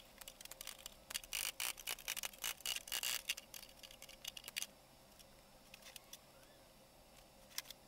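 Quick, light metallic clicks and rattles of small metal trunk hardware being handled and worked in the hands. The clicks come thick and fast for the first four and a half seconds, then only a few scattered clicks follow.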